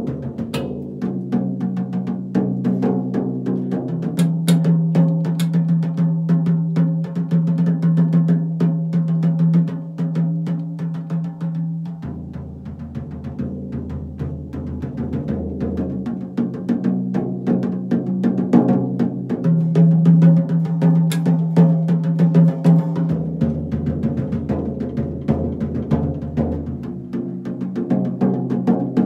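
Drum kit toms played in an improvised 6/8 groove, the tuned toms ringing with clear low pitches that shift every few seconds as different drums are worked. A few cymbal strikes cut through, near the start and again past the middle.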